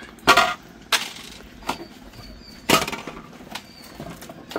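Plastic back cover of an LED TV being pried and lifted off, giving a few sharp cracking knocks as its clips let go, the loudest near the start and about two-thirds through.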